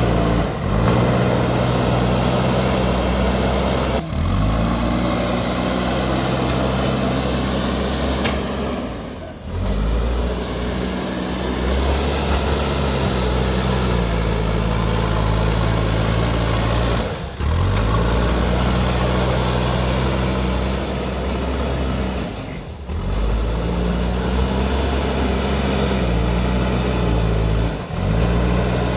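JCB backhoe loader's diesel engine running under load, its pitch shifting up and down as the machine works, with several brief breaks in the sound.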